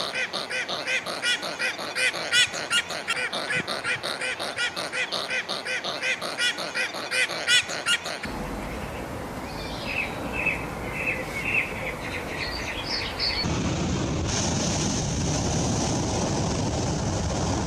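Waterfowl calling in a rapid, unbroken series, about three or four calls a second, for roughly the first half. After a cut, a noisy background with a few short, high chirps, then a steady hiss.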